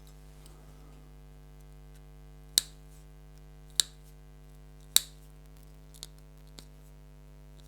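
Three sharp snips about a second apart, then two fainter clicks, as the excess cable shielding is cut off, over a steady low electrical hum.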